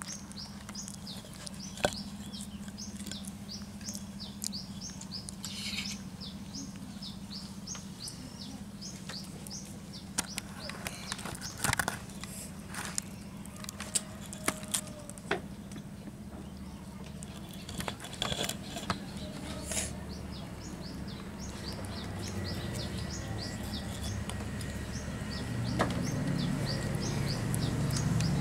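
Small birds chirping rapidly and continuously, several short high chirps a second, over a steady low hum. Scattered sharp knocks are heard, and a low rumble grows louder over the last few seconds.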